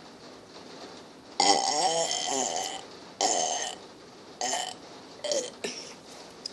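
A person burping: one long wavering burp lasting over a second, then three shorter burps.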